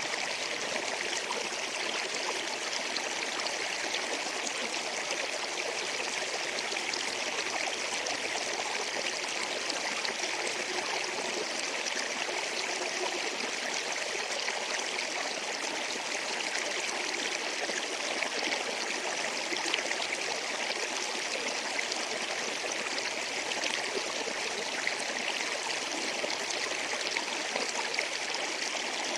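A river or stream flowing over rocks, a steady rushing and babbling of water with small splashes.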